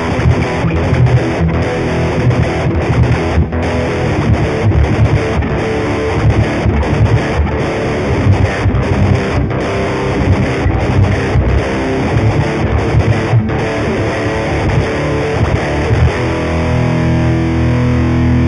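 Distorted seven-string electric guitar (Lavish Drogo-7) playing a heavy, chugging riff down on the low strings, broken by many short stops. Near the end it settles into held chords.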